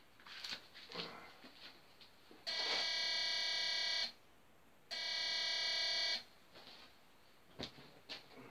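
Walk-through metal detector's alarm sounding twice, each a steady buzzing tone of about a second and a half, triggered by a large knife carried through the arch.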